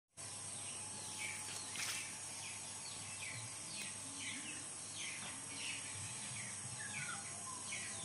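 Faint bird chirps, each a short falling note, repeating a few times a second over a steady outdoor background hiss.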